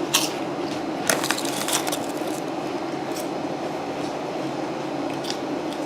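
Crackly crinkling and crunching of a potato chip bag and chips being eaten: short bursts right at the start and a cluster about one to two seconds in, with a few fainter ones later. A steady low hum runs underneath.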